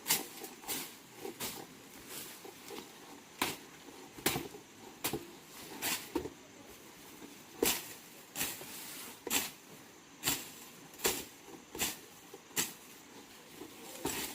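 Irregular sharp knocks or taps, about one to two a second, some much louder than others.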